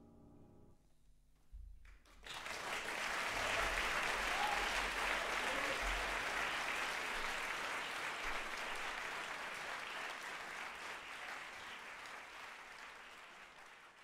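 Audience applause after a stage musical number. It starts about two seconds in, just after the last piano chord dies away, and swells quickly, then slowly fades toward the end.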